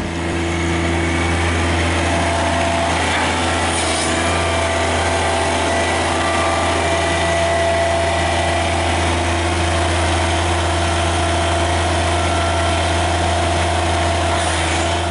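John Deere compact utility tractor's small three-cylinder diesel engine idling steadily, with no change in pitch or level.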